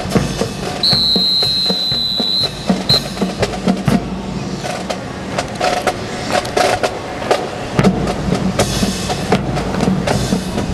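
A rifle drill team's sharp rifle clacks and boot stamps in a tight, regular rhythm. A long high whistle blast comes about a second in, then a short one.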